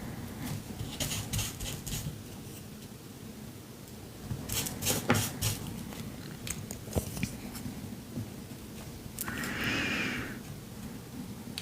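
Paper collage work: small rustles, taps and clicks of paper being handled and pressed onto a canvas, with one longer scratchy rustle about nine seconds in.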